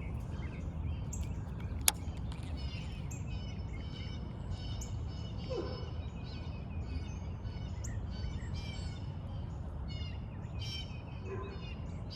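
A chorus of frogs calling from the pond: many short, high calls overlapping, over steady low background noise, with one sharp click about two seconds in.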